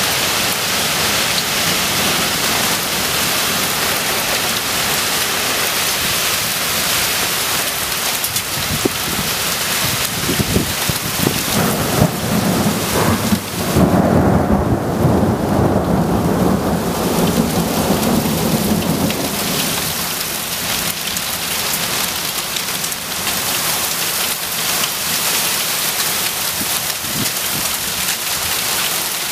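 Heavy wind-driven rain pouring down in a summer thunderstorm, a steady loud hiss. About halfway through, a long low rumble of thunder rolls for several seconds.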